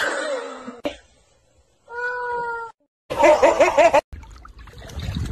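Domestic cats meowing and yowling in short separate calls: a gliding cry in the first second, then a held meow about two seconds in. A loud wavering cry follows about three seconds in, then water sloshing and splashing after a sudden cut near four seconds.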